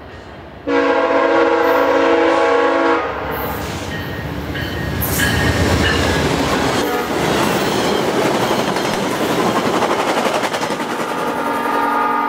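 VIA Rail GE P42DC passenger locomotive sounding its multi-note horn in one loud blast of about two seconds, starting about a second in, then the rush and wheel clatter of its passenger coaches passing at speed. The horn sounds again, weaker, near the end.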